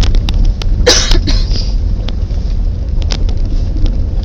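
Steady low road rumble inside a car's cabin as it drives slowly over a rough dirt road, with scattered small clicks and rattles and one louder brief jolt about a second in.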